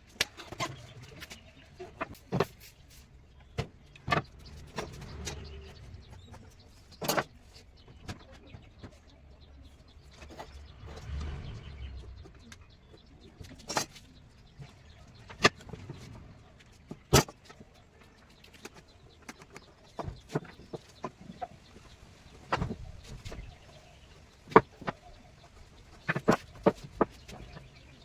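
Irregular sharp knocks and taps of woodworking on a wooden piece, a few to several seconds apart, with stretches of low rumble in between.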